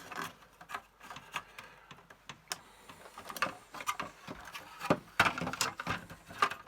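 Plastic panel of a Commodore MPS-801 printer's casing being prised off its little clips: irregular plastic clicks, creaks and knocks, with louder snaps in the second half.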